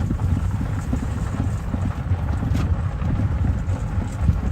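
Steady low rumble of wind buffeting the microphone, mixed with the low noise of a vehicle running.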